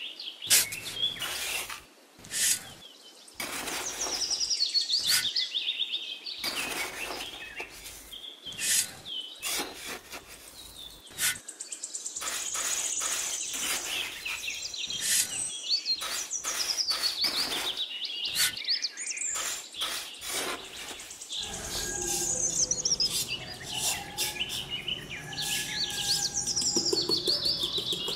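Small birds chirping and calling over and over, mixed with short scrapes of a small steel trowel through damp sand and cement mix.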